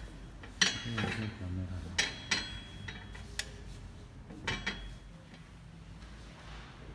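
Hands handling an antique globe in its stand: about seven light, sharp knocks and clicks on the rings and frame, some with a faint metallic ring, stopping about five seconds in.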